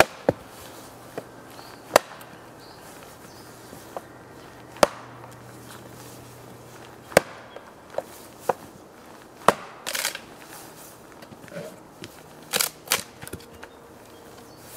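Fiskars X10-S axe chopping into an upright log stump: about a dozen sharp blows at irregular spacing, a few with a short splintering tail as slabs of wood split away to cut a notch.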